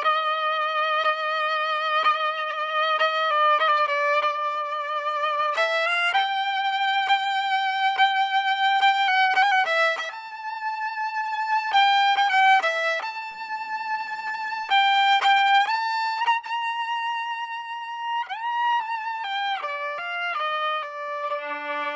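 Solo violin playing a slow melody in long held notes with vibrato, with a sliding shift between notes near the end.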